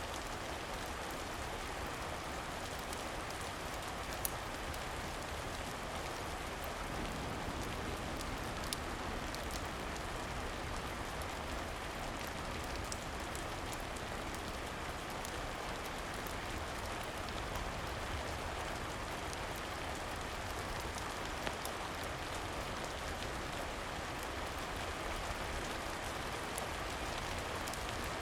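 Steady rain falling on a surface, an even hiss, with a few sharp clicks scattered through it.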